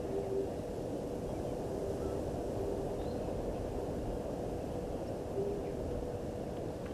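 Outdoor bush ambience at a waterhole: a steady low rumble with a faint constant hum, broken three times by a short low hoot, with faint high bird chirps in the background.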